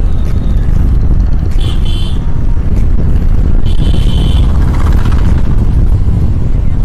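Motorcycle running on the road with a heavy, steady low rumble of wind on the helmet-mounted microphone. Two short high-pitched tones sound, about one and a half seconds in and again around four seconds.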